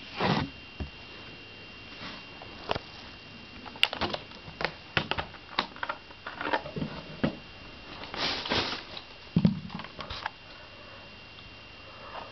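Plastic clicks and rustles from a Kamen Rider Knight V-Buckle toy transformation belt being handled, irregular and scattered through, with a faint steady high whine underneath.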